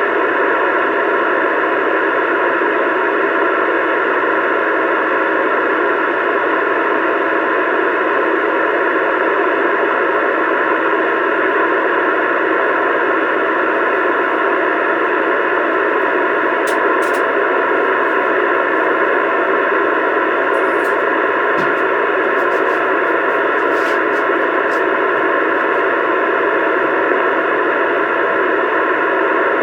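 Steady static hiss from a CB radio's speaker, holding unchanged with no voice on the channel.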